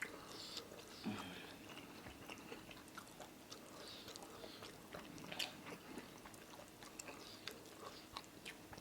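Faint chewing and mouth sounds of a person eating amala and egusi soup with fish, with many small clicks scattered through and a slightly louder one about five seconds in.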